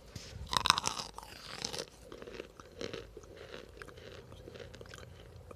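A bite into a hard, crunchy chunk of home-made cornstarch, then crunchy chewing: loudest about half a second in, the crunching grows smaller and fades over the next few seconds.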